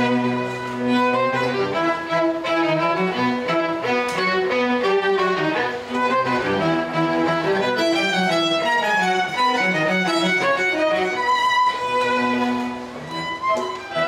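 Violin playing a quick-moving melody with a small live string and piano ensemble, over a held low bass note at the start and again near the end.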